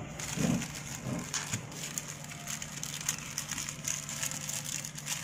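Bubble-wrap packaging crinkling and crackling as it is handled, a run of small irregular crackles and clicks.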